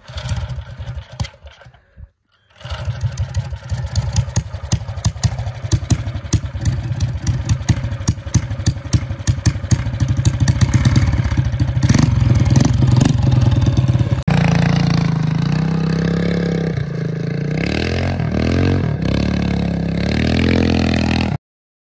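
Mini bike's small gas engine running with rapid, uneven firing, growing louder as it is revved. After a cut, it runs under way with its pitch rising and falling as the throttle opens and closes.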